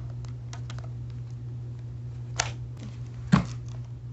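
Paper rubber band gun handled with a few light paper clicks, then two sharp snaps about a second apart as it is fired; the second snap is louder and carries a dull thud. A steady low hum runs underneath.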